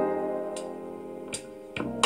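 Instrumental passage of a song: a held guitar and keyboard chord slowly fading, with a few faint ticks, about three, from light percussion.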